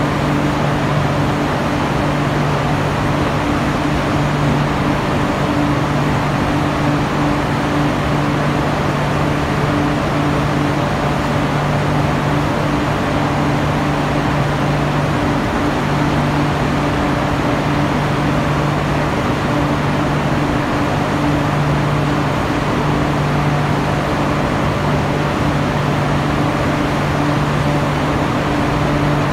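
Steady steelworks machinery noise: an even, unchanging drone with a constant low hum beneath it.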